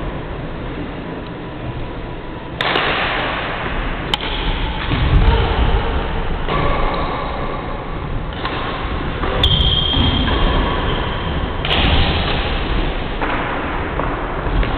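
Badminton rally: a few sharp racket strikes on the shuttlecock over a loud, steady noisy rumble, with one held high squeak about ten seconds in.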